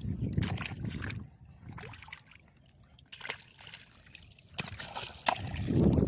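Shallow seawater sloshing and trickling as hands move through it around coral rocks, with scattered small splashes. A quieter stretch comes in the middle, and the water noise grows louder near the end.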